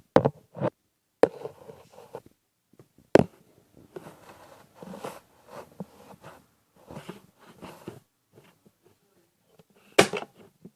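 Nerf Retaliator Elite blaster being handled and fired. There are several sharp snaps, the strongest about a second in, about three seconds in and near the end, with quieter clicks and rustling between them.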